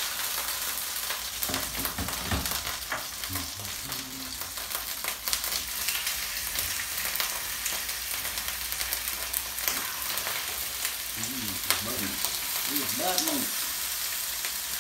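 Cod fillets sizzling steadily as they fry in oil in a frying pan, with scattered light clicks and knocks.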